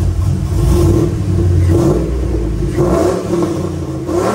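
The 2006 GMC Sierra's cammed 5.3-litre V8, breathing through long-tube headers, running just after being started. It is a loud, steady rumble with a few brief swells.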